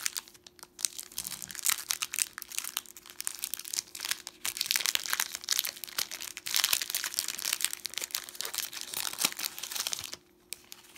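Foil Pokémon booster pack wrapper and clear plastic packaging crinkling in the hands as the pack is pulled open, in dense bursts of crackling that stop about ten seconds in.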